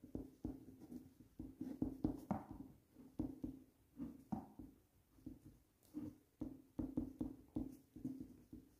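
Ballpoint pen writing on paper: quick, irregular scratching strokes and light taps of the pen tip, faint.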